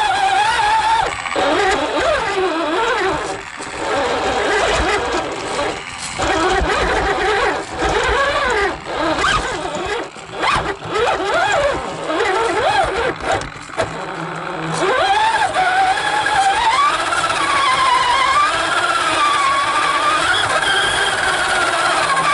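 Radio-controlled car's motor picked up by the on-board camera, its whine gliding up and down in pitch as the throttle is worked, with several short drops and breaks in the middle before it runs on more steadily near the end.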